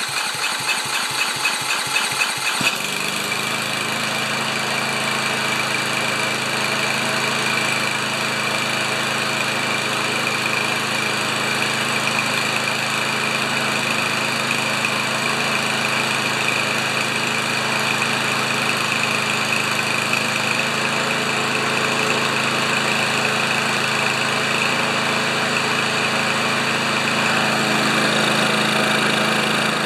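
Single-cylinder Kohler engine on a Craftsman push mower, just fired up with its automatic choke closed. It runs unevenly for the first couple of seconds, then settles into a steady run.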